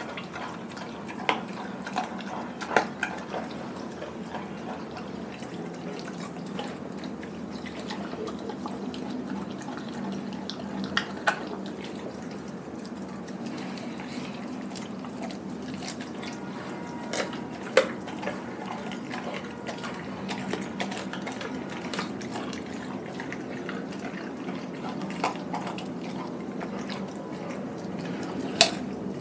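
Doberman chewing and licking at a whole raw chicken, a steady soft chewing sound broken every few seconds by short sharp clicks and cracks, the loudest near the end.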